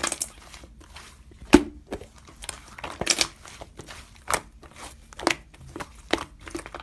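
Pink slime being squeezed and kneaded by hands, giving irregular sticky clicks, pops and crackles; the loudest pop comes about a second and a half in.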